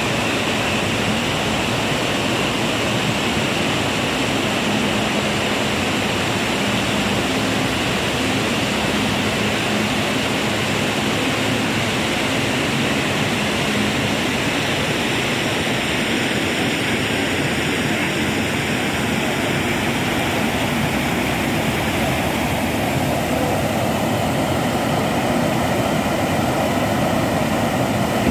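Steady rushing of a swollen, muddy stream running high after a flood, with water spilling over low weirs.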